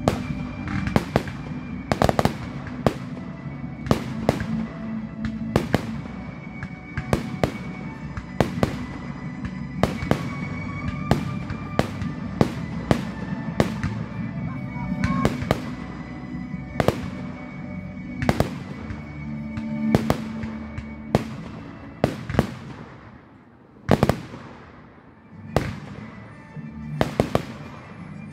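Fireworks display: aerial shells bursting in a rapid series of sharp bangs, one or two a second, thinning out near the end with one large bang, over music playing.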